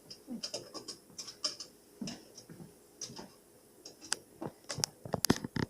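Scattered light clicks, taps and scratches of handling, with several sharper clicks near the end.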